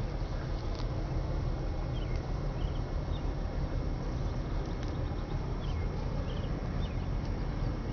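Steady low rumble of the lake freighter Herbert C Jackson's engine as she passes slowly, with short high bird chirps repeating every second or so.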